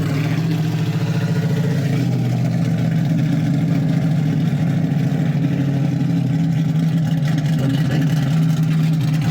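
1965 Ford Mustang's engine idling steadily at an even pitch.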